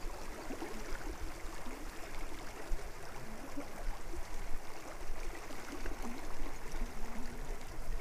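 Steady rippling of a shallow creek current running over stones where it enters the river.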